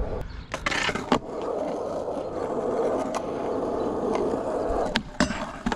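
Skateboard push-off with a few knocks, then polyurethane wheels rolling with a steady rumble over rough concrete. Near the end come a sharp pop and a clatter as the board hits the round rail for a 50-50 grind and comes back down.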